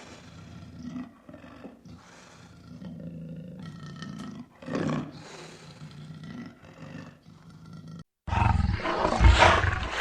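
Lion calling: a series of low, pitched calls. Just after eight seconds the sound cuts out for a moment and a louder, rushing noise begins.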